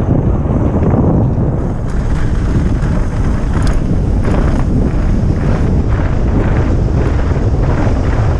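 Wind buffeting an action camera's microphone during a fast mountain bike descent, a loud steady rumble. From about two seconds in, the bike knocks and clatters over bumps on the dirt trail about twice a second.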